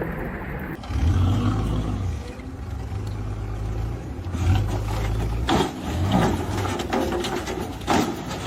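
An engine running with a steady low hum, then several sharp knocks or bangs from about halfway through.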